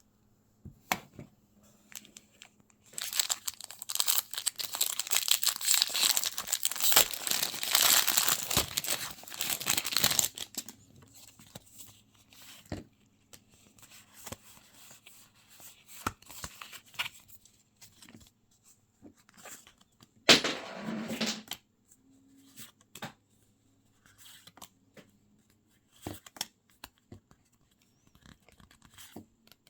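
A Pokémon booster pack's foil wrapper being torn open and crinkled for several seconds, followed by quieter handling of the cards with scattered light clicks and one short burst of rustling about two-thirds of the way through.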